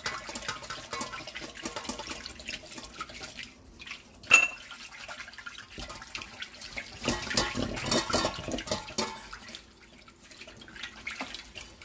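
Whisk beating a liquid dressing of oil, mustard and vinegar in a stainless steel bowl: rapid sloshing, swishing strokes with the wires scraping against the metal. A sharp clink against the bowl about four seconds in is the loudest moment, and the whisking grows louder for a couple of seconds later on.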